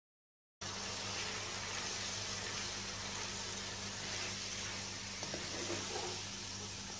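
Marinated chicken drumsticks sizzling steadily in hot oil with fried onions, starting about half a second in, over a low steady electrical hum.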